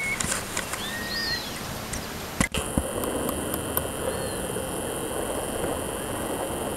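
Outdoor background noise with a few short bird whistles in the first second or so and fainter ones later, and a sharp click about two and a half seconds in.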